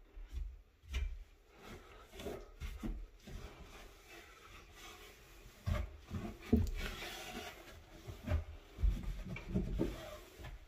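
Cloth wiping and rubbing down a surface sprayed with cleaner, with irregular light knocks and bumps as it is handled.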